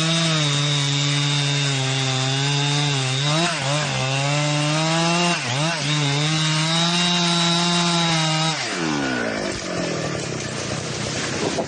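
Chainsaw running at high speed while cutting wood, its pitch dipping briefly twice, then falling away as the throttle is released about eight and a half seconds in.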